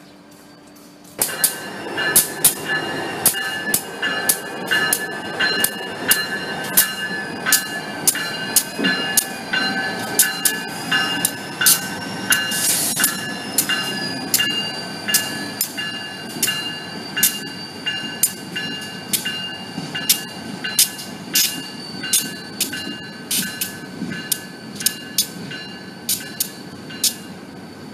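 A bell ringing in steady repeated strikes, about one to two a second, over the running of a New England Central Railroad diesel locomotive moving slowly. A brief high squeal rises and falls near the middle.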